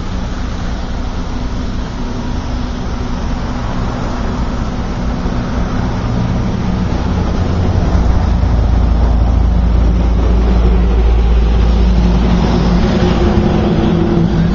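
A car engine running steadily off to the side, with a deep low rumble that grows louder from about halfway through.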